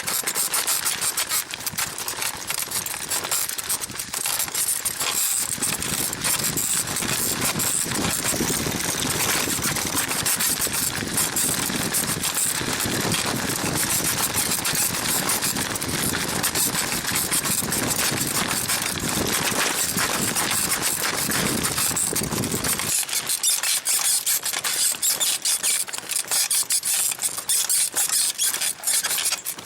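Springs of a 1970s sprung leather bicycle saddle squeaking rapidly and continuously as a rider bounces on it. A lower rumble underneath stops abruptly about three-quarters of the way through.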